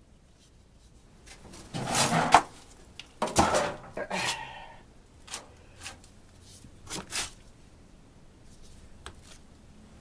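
Plastic furnace filter scraping and rasping as it is pulled out of its tight slot in the furnace housing, in two rough pulls about two and three seconds in. Several sharp knocks and clicks follow as it comes free and is handled.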